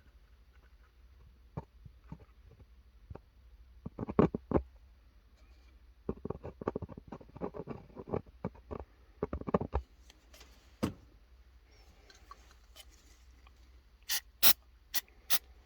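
Small clicks and taps of hands handling a car speaker and glue bottles on a workbench: a few taps, a busy run of light clicks, then four sharp clicks near the end.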